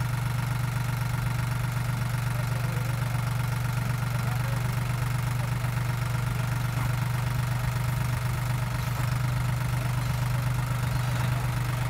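SAME Frutteto II 60 tractor's diesel engine running steadily at an even speed, with a constant low hum.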